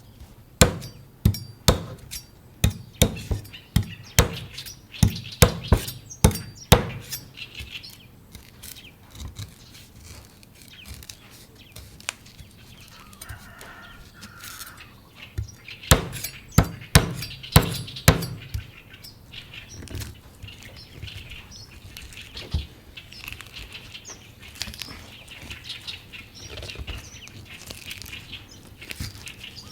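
Knife chopping into a coconut: a run of sharp strikes about two a second, then quieter scraping and shaving, a second short run of strikes around the middle, then more soft scraping.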